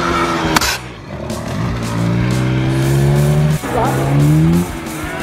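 Dirt bike engine accelerating hard: its pitch climbs, drops at a gear change about three and a half seconds in, climbs again and falls away as the throttle closes about a second later. Background music with a steady beat runs underneath.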